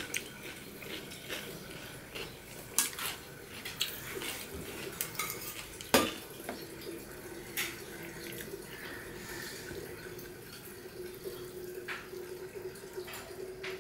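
Stainless steel dishes clinking while rice and curry are mixed by hand on a steel plate, with many scattered soft clicks. The loudest is a single sharp clink of a steel bowl against steel about six seconds in.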